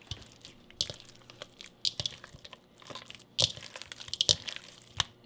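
Hands kneading sticky fathead dough in a bowl to work in a raw egg: irregular squelches and sticky smacks, a few of them sharper and louder.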